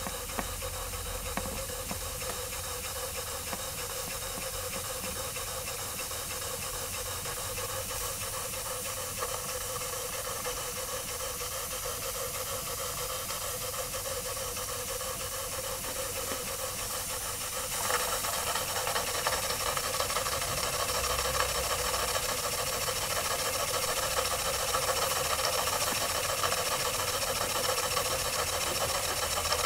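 Jensen live steam engine with a #20 cylinder on a 3-inch boiler running under steam: a steady hiss of steam with the engine's mechanical running beneath it. It gets suddenly louder about eighteen seconds in and stays louder.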